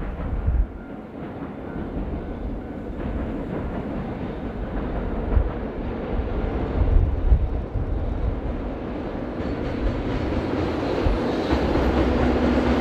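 Train of an EF66 electric locomotive hauling twelve unpowered Tobu 60000-series cars, rolling along the track across a bridge with a steady low rumble of wheels on rails, growing louder as it approaches.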